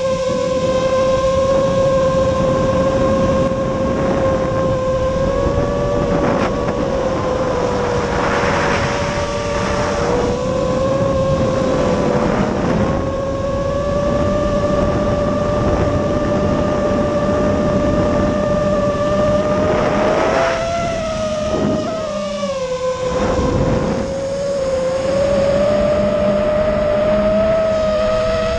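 A Nazgul Evoque F5 five-inch freestyle FPV quadcopter's brushless motors and propellers whining steadily. The pitch wavers up and down with the throttle. The sound is picked up by the onboard camera, with rushes of wind noise swelling several times.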